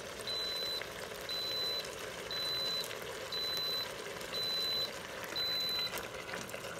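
Electronic kitchen appliance beeping: a high steady beep about half a second long, repeating about once a second and stopping near the end, over a steady low hiss.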